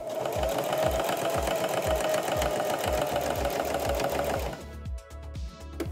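Electric sewing machine running steadily, its needle stitching through layers of faux fur and fabric, then stopping about four and a half seconds in.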